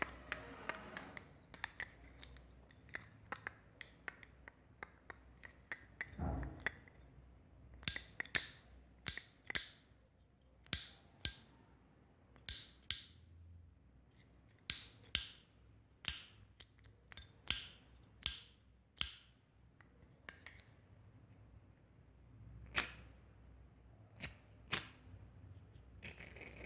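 A cigarette lighter being clicked over and over: sharp clicks at irregular spacing, often two or three close together, some followed by a brief hiss.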